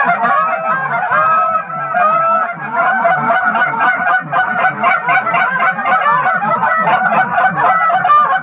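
A loud, dense run of Canada goose honks and clucks, many calls overlapping without a break.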